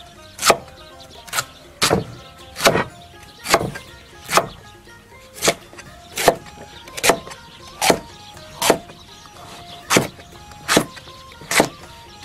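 Chinese cleaver slicing a peeled pumpkin on a thick wooden chopping block: a steady run of sharp knocks, about one a second, each as the blade goes through the flesh and strikes the board.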